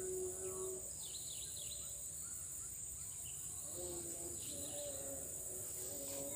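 Outdoor ambience of a steady, high-pitched insect drone, with short bird chirps between about one and two seconds in and again near the five-second mark.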